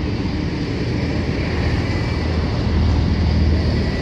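Loaded coal hopper wagons of a freight train rolling past on the rails, a steady rumble of wheels and wagon bodies that swells slightly toward the end.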